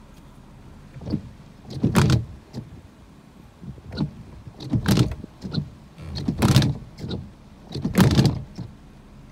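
Gusts of hurricane wind buffeting the microphone: about six sudden, irregular rushes of rumbling noise a second or so apart, over a low steady hiss.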